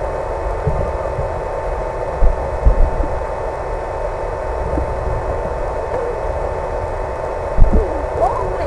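Steady hum and hiss with a constant whine from a radio-controlled model plane's electric motor and the wind, broken by a few short low thumps of wind buffeting, about two and a half seconds in and again near the end.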